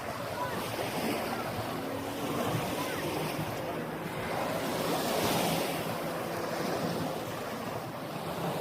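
Small sea waves washing onto a sandy beach, the wash swelling and easing about halfway through, with wind across the microphone.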